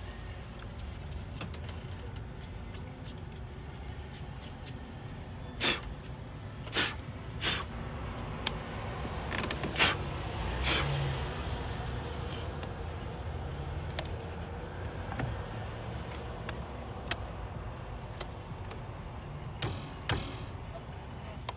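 Sharp knocks and clicks of parts and tools being handled during work on a car battery and its terminals. There are several in a cluster from about a quarter of the way in to the middle and two more near the end, over a steady low rumble.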